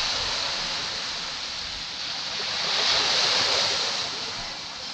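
Caribbean sea waves breaking and washing up the beach, a steady hiss of surf that swells twice, loudest about three seconds in.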